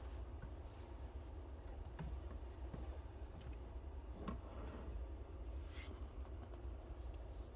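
Faint handling noises of small plastic diorama parts: light clicks, taps and rubbing, with a brief scrape near the middle, over a steady low hum.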